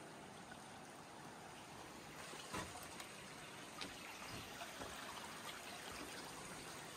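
Faint, steady rushing of a creek, growing slightly louder, with a few light clicks over it.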